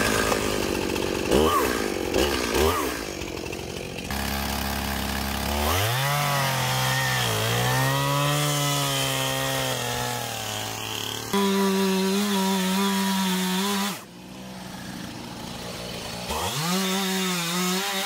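Stihl gas chainsaw, blipped twice, then revved up and cutting into a poplar trunk, its pitch dipping and recovering under load. It eases off for a couple of seconds near the end, then revs up and bites in again. This is the back cut of a felling.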